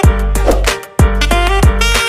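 Background music: an upbeat instrumental track with a heavy bass beat about once a second under a melody.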